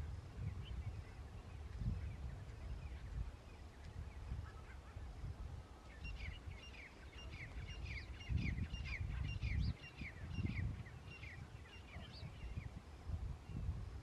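Grey francolins calling: a few scattered calls, then from about six seconds in a quick run of short, high notes, each falling in pitch, several a second, which stops a little before the end. A low rumble runs underneath, with louder swells.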